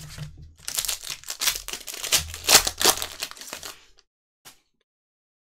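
Foil wrapper of a football trading-card pack crinkling and tearing as it is ripped open and pulled off the cards. The rapid crackling lasts about four seconds, then comes one short crinkle.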